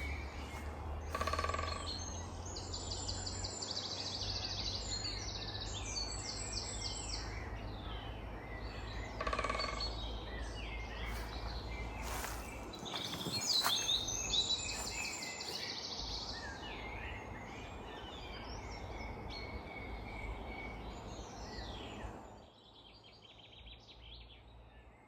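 A steady low rushing noise that drops away suddenly about 22 seconds in; the hiker could not identify it and likened it to something swinging on a tree. Two short pitched sounds come about 1 and 9 seconds in, and songbirds trill over it.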